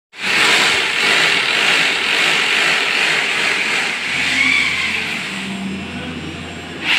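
Power drill running as holes are drilled into the tiled wall to mount toilet partition boards, a steady motor whir and grinding.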